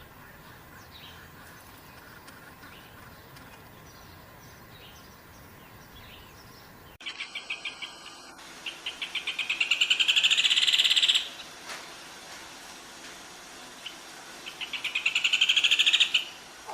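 Bird song: faint scattered chirps, then after a cut a bird gives two loud songs of rapid repeated notes that speed up and swell into a fast trill.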